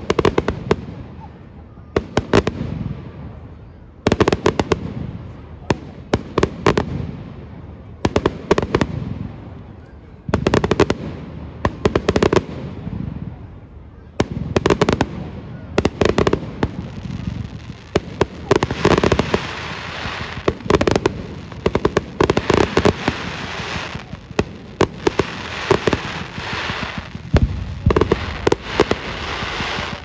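Fireworks display: aerial shells bursting with sharp bangs about every two seconds, each trailing off. From about eighteen seconds in, the bangs come thicker, over a steady crackling.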